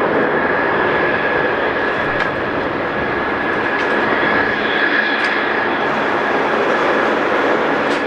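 Aircraft engines running steadily and loud: an even roar with a thin, steady high whine over it.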